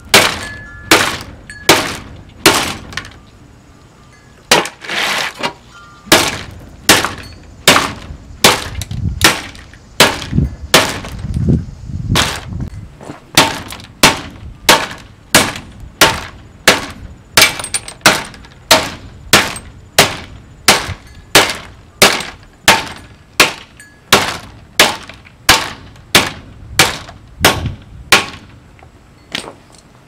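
A plastic box fan's grille and frame being struck over and over with a metal bar, about one and a half blows a second, each hit a sharp crack of breaking plastic. The blows pause briefly a few seconds in, then carry on steadily.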